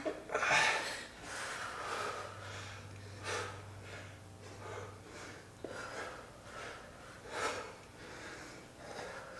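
Hard breathing of a person exerting themselves mid-workout, with sharp exhalations every second or two.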